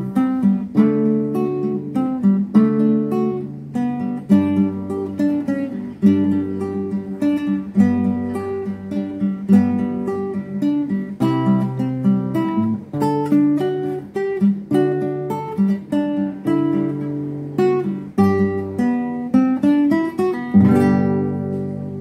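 Solo nylon-string classical guitar fingerpicking a melody over a bass line in three-four time, in G major. Near the end it lands on a full chord that rings and fades.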